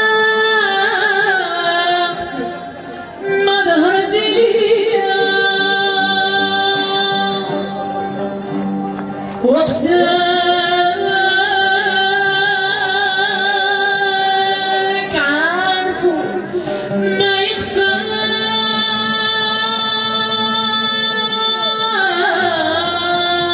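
A woman singing long, held phrases with wavering ornamental turns between the notes, over a steady low accompaniment.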